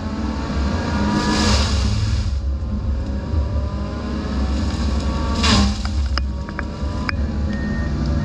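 Excavator-mounted Fecon FDX disc mulcher running: a steady low drone with the spinning disc's whine over it, and two loud grinding surges, about a second and a half in and about five and a half seconds in, as the disc chews into brush and saplings. Scattered sharp ticks follow in the last couple of seconds.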